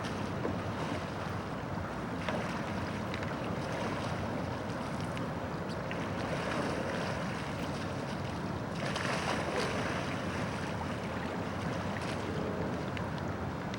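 Wind buffeting the microphone over waves and lapping water: a steady rushing noise that swells for a second or two about nine seconds in.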